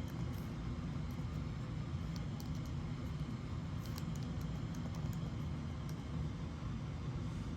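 Bursts of faint clicks from typing on a laptop keyboard, over a steady low hum.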